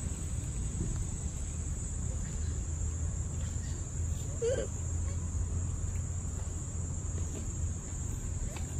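Steady high-pitched drone of insects (crickets or cicadas) over a low steady rumble, with one brief short squeak about halfway through.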